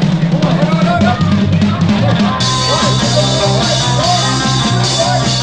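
Rock song with drums, guitar and singing.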